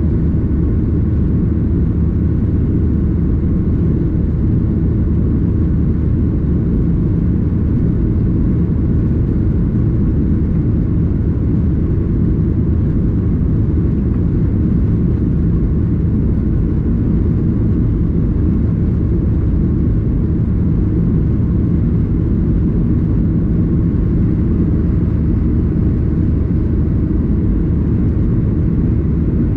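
Steady low rumble of a Boeing 737-800 heard from inside the passenger cabin: engine and airflow noise, unchanging throughout.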